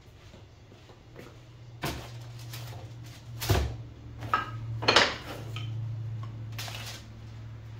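Wooden sticks and a hot foil-wrapped wood round being handled on a wood-and-wire rack: a few sharp knocks and clatters, loudest about three and a half and five seconds in, over a steady low hum.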